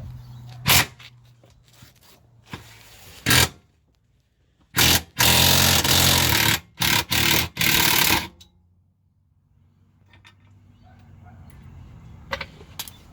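Power impact wrench run in several loud bursts for about three seconds, undoing bolts to drop a Holden Commodore's T5 gearbox, after two short sharp knocks.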